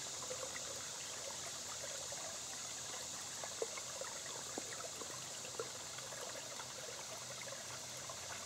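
Shallow woodland stream trickling gently over rocks, a steady even rush of water, with a few faint small clicks in the middle.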